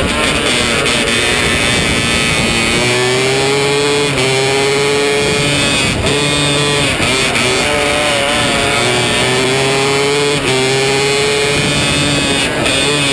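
A 270 micro sprint car's single-cylinder four-stroke engine at full race pace, heard close up from the cockpit. The pitch climbs along the straights and drops briefly several times as the throttle is lifted for the corners.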